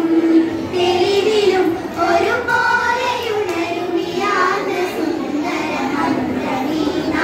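Group of young girls singing a Malayalam patriotic song together, one melody held in long gliding notes.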